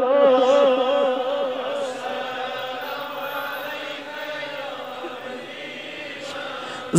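A man chanting the Darood refrain: a long held note with a regular waver fades over the first couple of seconds, and fainter chanting carries on until a loud voice comes back in at the very end.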